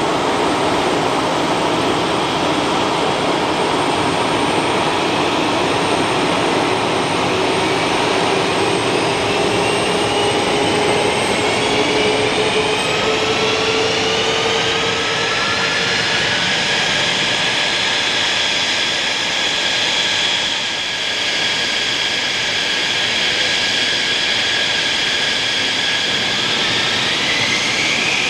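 Jet engines of two Mitsubishi F-2 fighters, General Electric F110 turbofans, running on the ground with a steady jet noise and whine. Whining tones rise between about eight and sixteen seconds in as an engine spools up, then hold steady, and another whine rises near the end.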